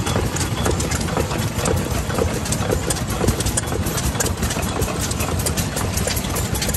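Old single-cylinder stationary farm engine running at a slow idle, its flywheels turning, with a steady, even beat.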